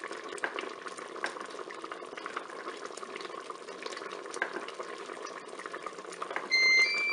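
Peach and orange jam boiling hard in a Cookeo multicooker bowl: a steady bubbling with many small irregular pops. Near the end the Cookeo gives a two-note electronic beep, rising in pitch.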